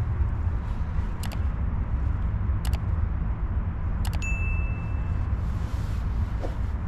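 Three mouse-click sound effects and a short bell ding from a like-and-subscribe animation, the ding following the last click, over a steady low outdoor rumble.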